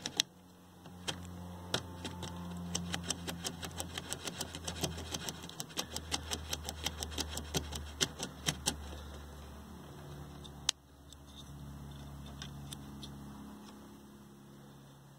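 Small rotary control potentiometers on a vintage Sony Trinitron TV's control board being turned back and forth by hand to work in freshly sprayed contact cleaner, giving a quick run of small clicks, several a second, that thins out near the end, with one sharper click after that. A steady low hum runs underneath.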